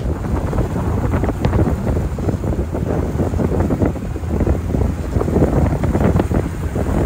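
Wind buffeting the microphone in heavy, uneven gusts over the rush of a boat moving across the sea.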